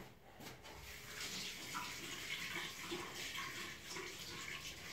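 Faint, steady hiss of running water.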